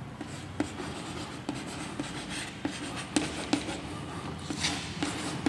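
Chalk writing on a chalkboard: scratching strokes broken by a series of sharp taps as the chalk strikes the board.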